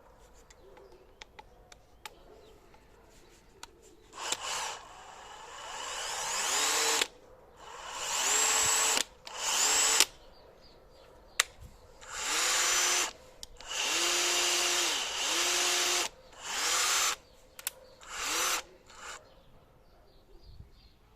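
Metabo BS 18 LT BL 18 V brushless cordless drill/driver run free in about nine short trigger pulls, each spinning up with a rising whine and then stopping. One run is brought up slowly on the variable-speed trigger. A few faint clicks come before the first run.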